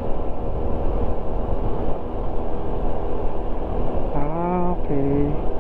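Honda Wave 110 underbone motorcycle's single-cylinder four-stroke engine running steadily at cruising speed, with road and wind noise.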